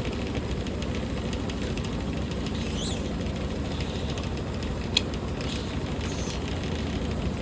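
Washing machine drum spinning on its spin cycle: a steady mechanical rumble, with a single sharp click about five seconds in.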